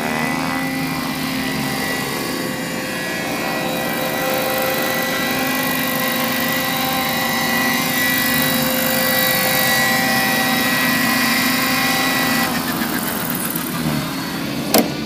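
Scale radio-controlled model helicopter flying, its motor and rotor making a steady whine; the tone shifts about twelve seconds in, and there is a sharp click shortly before the end.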